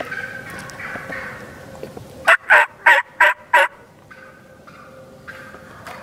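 Wild turkey gobbling: one loud gobble of about five quick pulses, a little over two seconds in.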